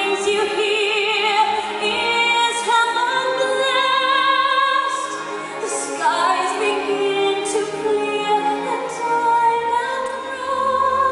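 Music-theatre ballad sung live over orchestral accompaniment: a singing voice holding long notes with vibrato, moving from note to note every second or two.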